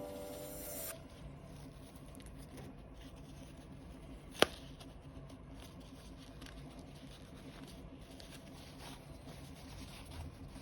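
A music tail that stops about a second in, then faint light tapping and small handling noises with one sharp click about four seconds in.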